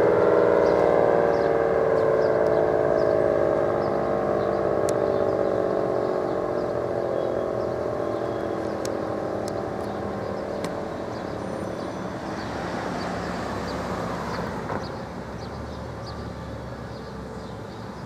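ACA Allertor 125 rotating siren winding down at the end of its alert signal, its tone falling in pitch and fading over several seconds. Road traffic noise is left under it as it dies away.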